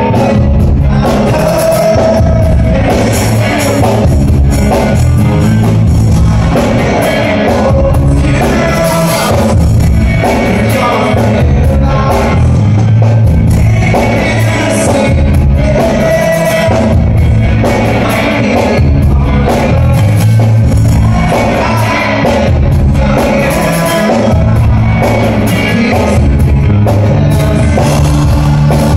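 Live rock band playing loudly, with a singer over electric guitar, bass and drums, heard from the audience.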